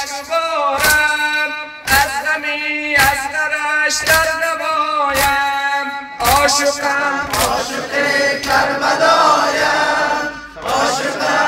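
A man chanting a Shia mourning lament (noha) into a microphone in long held notes, with sharp chest-beating strikes (matam) about once a second. About six seconds in, a group of men joins in with a louder, rougher chant.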